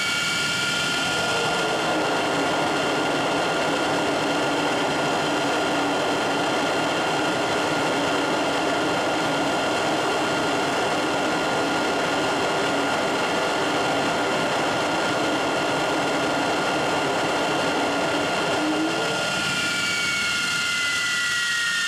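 An Avro Vulcan's Bristol Siddeley Olympus turbojet running at full throttle, giving the Vulcan's signature howl, which comes from air moving through the engine's intake. It is a steady, loud roar with high whistling tones, and the whine drops in pitch near the end.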